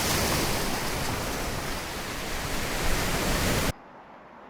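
Loud, steady rushing hiss with no pitch or rhythm, spread across all pitches, that cuts off suddenly about three and a half seconds in, leaving quiet room tone.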